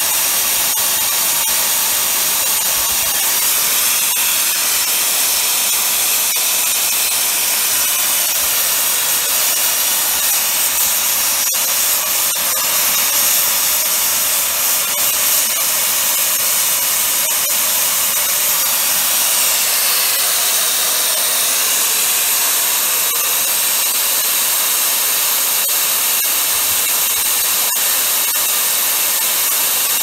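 Wood-fired rocket-stove steam boiler running, with a steady, loud hiss of escaping steam.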